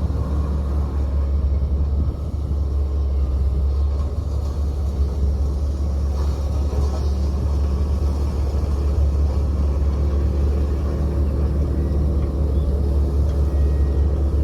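Heavy road-construction machine's diesel engine running steadily, with a deep, even rumble.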